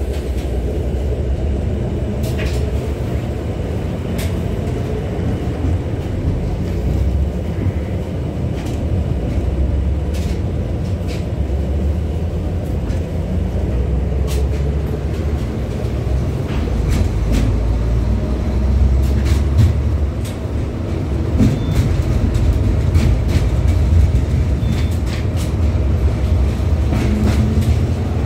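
LVS-86K tram running between stops, heard from inside the car: a steady low rumble from the running gear on the rails, with scattered clicks and rattles throughout.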